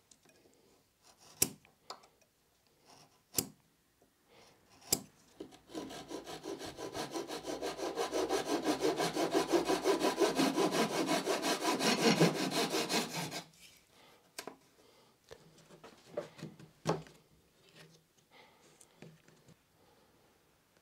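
Fine-toothed flush-cut hand saw trimming a thin MDF edge strip flush with a chipboard edge, in quick, even strokes for about eight seconds, starting about six seconds in. Before the sawing there are a few sharp clicks, and after it a few light taps.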